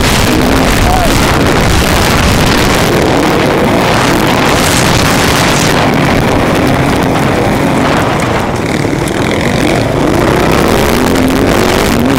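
On-board sound of a motocross bike racing flat out: its engine runs hard with the pitch rising and falling as the throttle works, under a dense rush of noise, dipping briefly about two-thirds of the way through.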